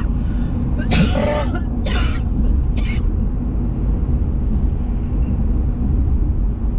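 A person coughing four times in about three seconds, the second cough the longest and loudest, over the steady low rumble of a vehicle on the move.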